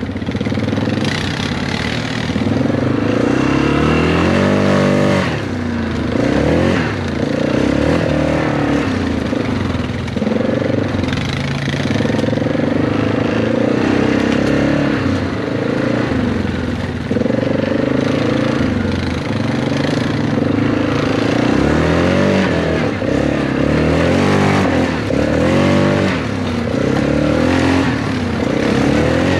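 Four-wheeler (ATV) engine running under load, its pitch rising and falling over and over as the rider throttles up and eases off, with sharp revs about five seconds in and again past twenty seconds.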